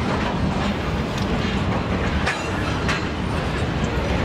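Freight train wagons rolling past, a steady rumble with repeated clicks of the wheels over the rail joints.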